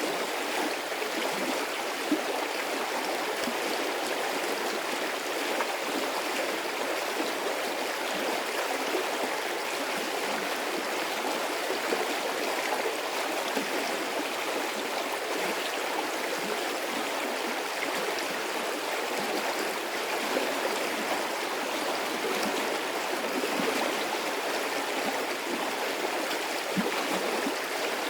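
Medium-sized stream of water flowing steadily, a continuous rushing with gurgling and splashing.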